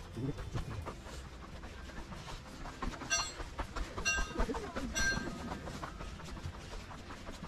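Gondola lift cabin running along its cable: a steady rattling with many clicks and knocks, and a few short high squeals about three, four and five seconds in.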